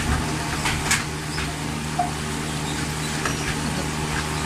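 Pork sizzling on a tabletop grill over a steady low hum, with a few light clicks of tongs and chopsticks, the sharpest about a second in.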